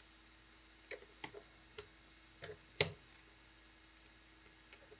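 3.5 mm patch cable plugs being pushed into the jacks of Eurorack modules, giving a handful of light, sharp clicks spread over a few seconds; the sharpest comes near the middle.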